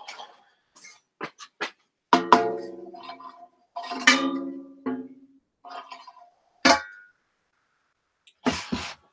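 A round metal piece clanging as it is handled and set down on a shipping scale: a few light clicks, then three ringing strikes about a second apart that each fade over about a second, and a few sharp knocks near the end.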